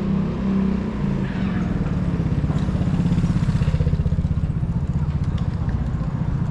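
A motor vehicle's engine running close by, with a rapid low pulsing that is loudest around the middle.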